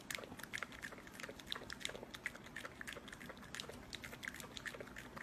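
A small dog lapping a thick, frothy drink from a glass: quick, irregular, wet tongue clicks and slurps, several a second.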